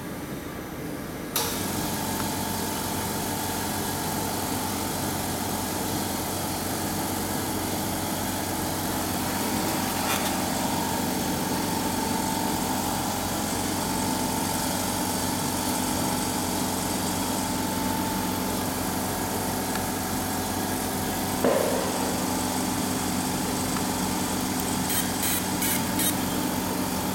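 Small oil-free piston air compressor switching on about a second in and running steadily with a hum and a hiss. Near the end comes a quick run of short ticks.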